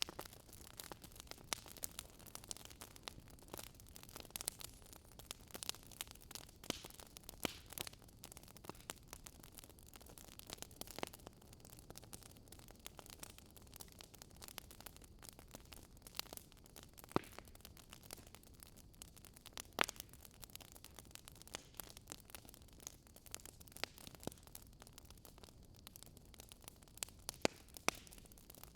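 Fireplace wood fire crackling: a soft steady hiss broken by frequent, irregular small pops and snaps.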